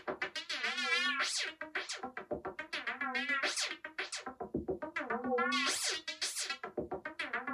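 Electronic music: synthesizer notes with a wavering pitch over a fast pulsing beat.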